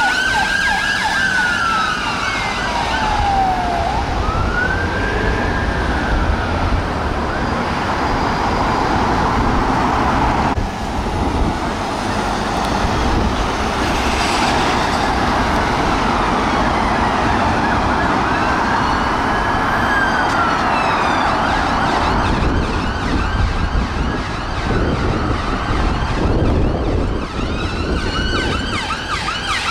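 Emergency vehicle sirens wailing in slow rising and falling sweeps, switching to a fast yelp near the end, over the steady rumble of road traffic.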